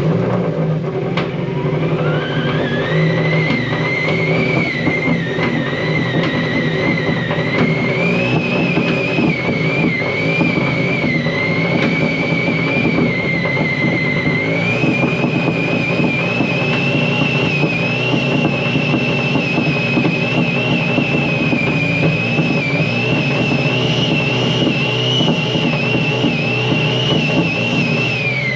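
Car running, a steady engine note under a high whine that rises over the first few seconds and then wavers up and down.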